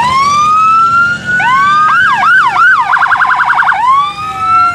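Electronic vehicle siren cycling through its tones. First a rising wail, then a few quick yelps about two seconds in. Then a rapid warble of about a dozen pulses in under a second, and a fresh rising wail near the end.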